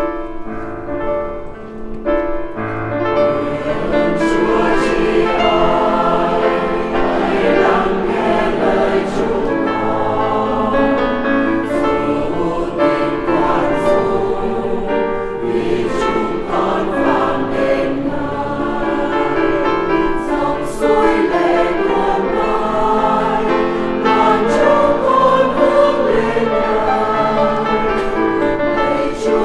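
A church choir singing a hymn in several voices, the entrance hymn before the Mass begins.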